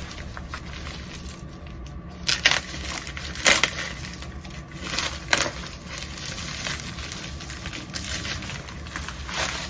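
Packaging being torn open and handled while unboxing a mailed parcel of comic books, with several short crackling rips among softer rustling.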